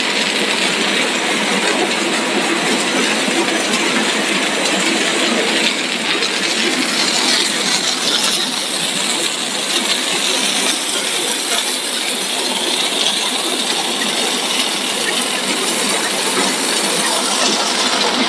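Machinery of a corn-chip extrusion line running: a loud, steady mechanical noise with a dense metallic clinking rattle through it.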